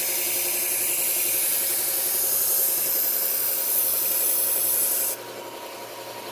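Knife blade steel being ground edge-trailing on a running low-speed belt sander with a coarse Cubitron P120 ceramic belt, a steady loud hiss over the sander's motor hum while raising a burr. The grinding stops suddenly about five seconds in, leaving the sander running on its own.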